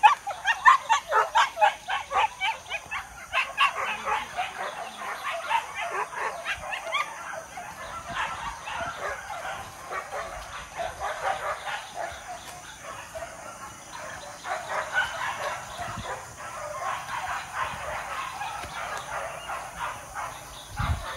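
A pack of pig-hunting dogs yelping and barking, with rapid high yelps at the start, then overlapping barking that carries on a little fainter.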